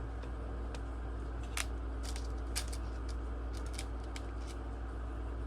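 Tiny laptop screws being handled and picked through: scattered light clicks and ticks at irregular intervals, over a steady low hum.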